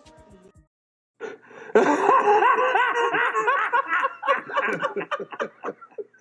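Men laughing hard in rapid, loud bursts that start about a second in and break up into shorter chuckles toward the end.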